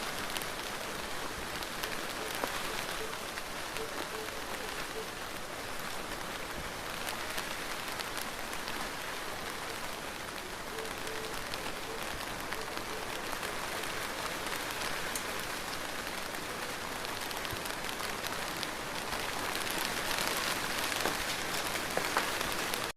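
Steady rain falling, a dense hiss with many individual drops ticking on a hard surface, a little heavier near the end.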